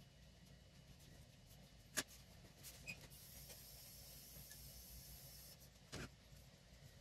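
Near silence. A 3D pen is being handled and drawn with on paper: two light clicks about two and six seconds in, and a faint high hiss between them while the pen is drawing.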